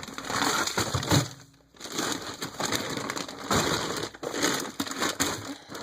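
Plastic-wrapped frozen food packages crinkling and rustling as they are handled and shifted about in a freezer, irregular and crackly, with a brief pause about a second and a half in.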